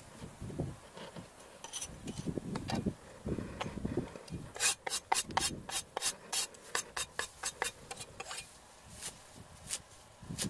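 Knife working on a wooden chopping block: rubbing and scraping sounds at first, then a fast, even run of sharp knife strokes against the wood, about five a second, lasting about four seconds. A few single knife chops come near the end.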